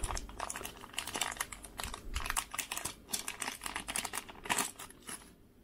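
Thin clear plastic packaging bag crinkling and crackling as it is handled and opened, a rapid run of small crackles that dies away near the end.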